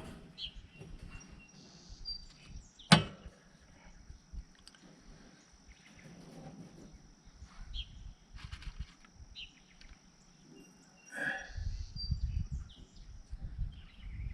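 Light clicks and rattles of wire-mesh cage panels being handled and positioned, with one sharp metallic snap about three seconds in. Faint bird chirps and a steady high whine sit in the background, and low handling rumble comes in near the end.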